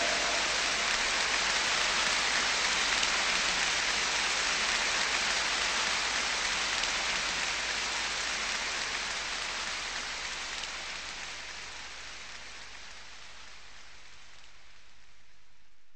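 Audience applause from a live concert recording, a dense even clapping that fades out over several seconds, leaving a faint steady hiss near the end.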